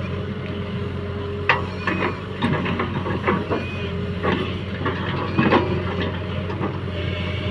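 JCB 3DX backhoe loader's diesel engine running steadily under working load, with a string of sharp knocks and clanks from the digging and loading gear.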